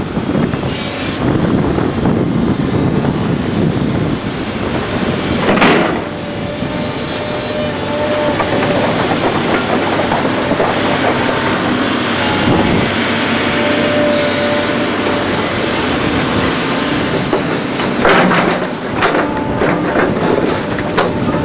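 Volvo crawler excavator working: diesel engine running under load with a hydraulic whine that comes and goes, and clanking from the tracks and bucket. A loud knock about six seconds in and a quick run of knocks near the end.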